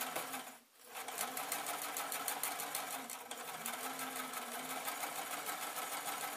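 Electric domestic sewing machine running at a steady speed, its needle stitching rapidly and evenly along a zip seam over a motor hum, picking up again after a brief pause under a second in.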